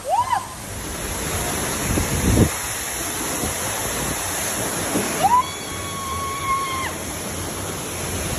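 Water rushing down a water slide as an inflatable tube rides through it: a steady loud rush with a few low thumps about two seconds in. A high cry rises and holds, briefly at the start and again for about two seconds from five seconds in.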